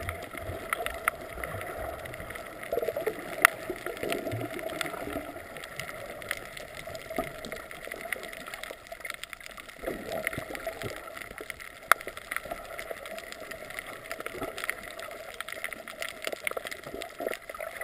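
Underwater sound picked up by a GoPro in its waterproof housing: muffled, steady water noise with scattered clicks and crackles throughout, and two sharper knocks about three and a half and twelve seconds in.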